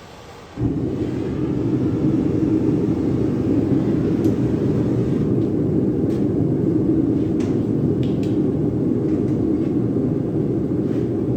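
A forge running: a loud, steady low rushing rumble that starts suddenly about half a second in, with a few faint clicks over it, while an axe head is heated for re-hardening.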